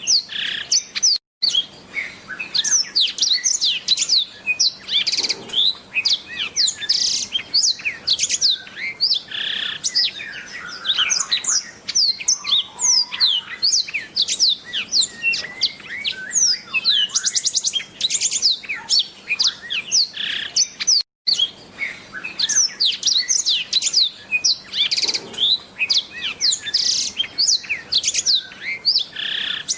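Black-throated canary (blackthroat) singing a long, fast, unbroken twittering song of rapid high chirps, sweeps and trills. The sound cuts out for an instant twice, about a second in and about two-thirds of the way through.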